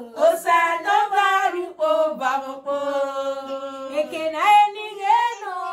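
Women singing a melody without instruments, with long held notes that slide up and down between short breaks.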